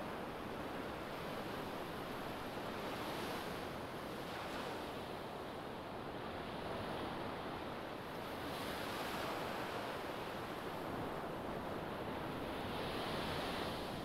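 Low ocean waves breaking and washing up a sandy beach: a steady rush of surf that swells louder every few seconds as each wave comes in, about three times here.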